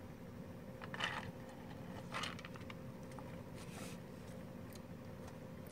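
Quiet room tone with a faint steady hum, and a few soft short sips from a paper cup about one and two seconds in.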